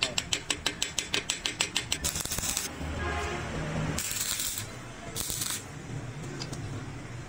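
Chipping hammer tapping rapidly on a steel weld, about six blows a second, for the first two seconds. Then three short bursts of crackling hiss from a stick-welding arc on the wrench.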